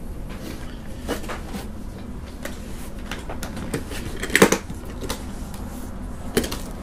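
Metal latches on an Epiphone Les Paul hard-shell guitar case being worked open by hand: a scattered series of clicks and clacks, the loudest cluster a little past halfway.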